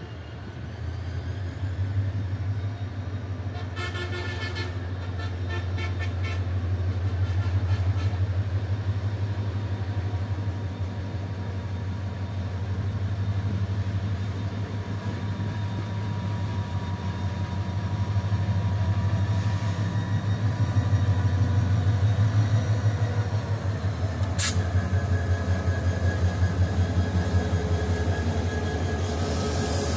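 Bangladesh Railway diesel-electric locomotive approaching and passing with its engine running in a deep steady drone that grows louder as it nears. A run of short pulsing toots comes about four seconds in, and a single sharp clank about 24 seconds in. In the last seconds the intercity coaches roll past with a regular clatter of wheels over the rail joints.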